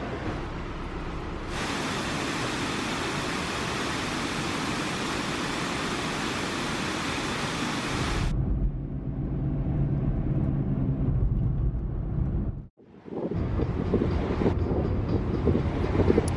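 Steady rushing roar of a waterfall. It cuts off abruptly about eight seconds in and gives way to a low rumbling noise, which drops out for a moment near the end.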